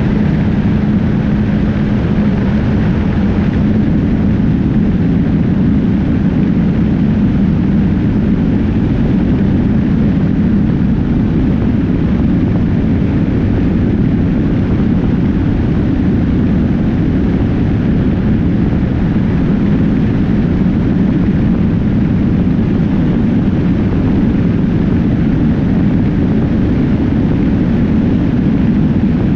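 Heavy, steady wind buffeting on a motorcycle-mounted action camera's microphone at highway speed, with the motorcycle engine's low drone underneath.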